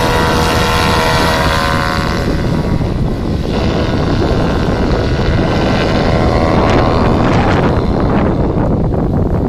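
Paramotor trike's engine and propeller running at full power on takeoff. The steady engine note fades after about two seconds as the craft climbs away, leaving wind buffeting the microphone.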